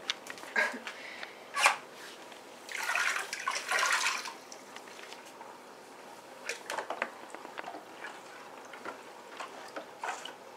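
Two sharp knocks, then a cup of salt poured into a plastic tub of hot water, a rushing hiss lasting about a second and a half. After that, a spoon stirring the water, with light splashes and knocks against the plastic tub.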